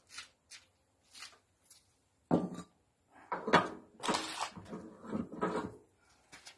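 Metal clunks, knocks and scrapes from parts being handled at a stationary diesel engine. A few light clicks come first, then one sharp knock about two seconds in, then a run of louder, uneven clunks and scrapes with a little ringing.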